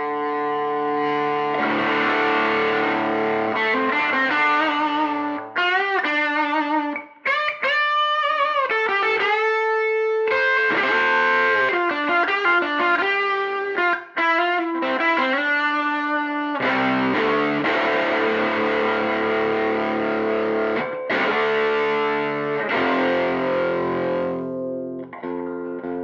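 A 1955 Gibson Les Paul Junior electric guitar played through a Bell & Howell 614 Filmosound projector amplifier converted into a guitar amp. It plays sustained chords and single-note lines, with bent, wavering notes about a third of the way in.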